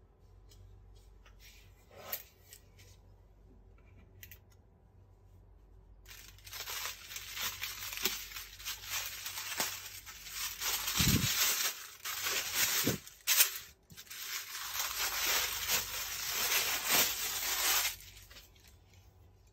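Tissue paper rustling and crinkling with sharp crackles as it is lifted and folded back inside a gift box, starting about six seconds in and stopping about eighteen seconds in. A faint tap about two seconds in.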